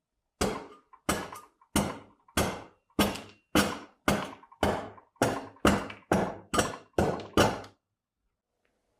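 A hammer striking an engraving tool into metal to cut letters: about fourteen sharp, ringing blows at roughly two a second, stopping near the end.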